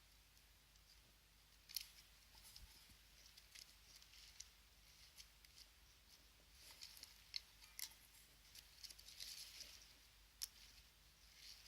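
Faint sticky clicks and crackles of borax slime being kneaded and scraped up from a bowl, coming in irregular clusters with a sharper click near the end.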